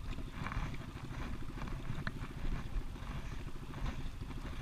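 A small fishing boat's engine running steadily at idle, a fast even chugging, with a few brief sharper sounds on top as the net is hauled aboard.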